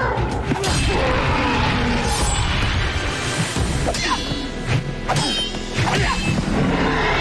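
Action-scene music with staged fight sound effects: several whacks and blows land in quick succession.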